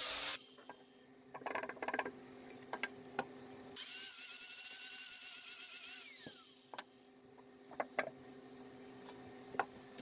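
A small handheld power sander stops grinding foam just after the start. A steady low hum carries on underneath. About four seconds in, the tool runs free with a high whine for about two seconds, then winds down. A few clicks and taps of handling follow.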